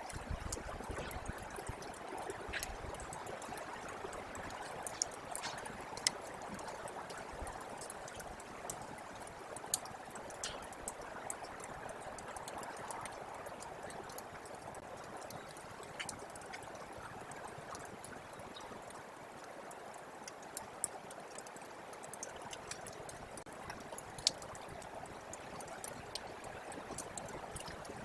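Thawing snowmelt water running and trickling steadily, with scattered sharp clicks throughout.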